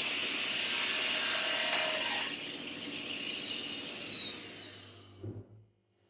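Table saw with a 250 mm, 72-tooth Woodwork crosscut blade cutting through a painted larch board, a soft, rustling cut over the blade's high whine. About two seconds in the cutting ends, and the whine falls in pitch and fades as the blade winds down, stopping with a low thump near the end.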